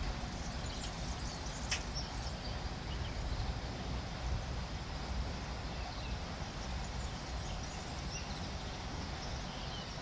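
Faint birdsong, a few scattered chirps, over a steady low outdoor rumble.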